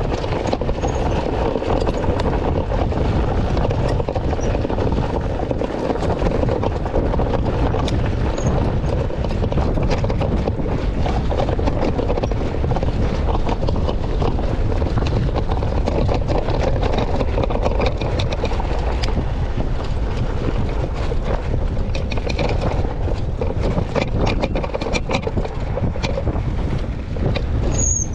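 Wind buffeting the microphone over the rolling noise of an ONYX RCR electric moped riding a rocky dirt trail, with frequent small knocks and rattles from the rough ground.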